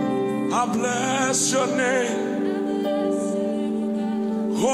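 Live gospel song: a male lead singer with vibrato over held instrumental chords. His voice sweeps up into a new phrase near the end.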